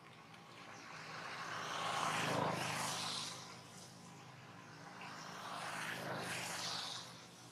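Motor vehicles passing by: a broad engine-and-road noise swells up and fades away within the first four seconds, then a second, somewhat quieter pass rises and fades near the end.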